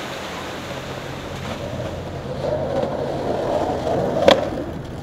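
Skateboard wheels rolling on rough concrete, growing louder about halfway through, with one sharp clack of the board near the end, over steady traffic noise.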